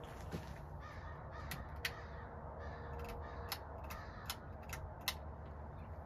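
Hampton Bay Carousel 2 ceiling fan running with a steady low hum and a faint whine. A scattered series of sharp ticks sits over it and comes about every half second in the second half.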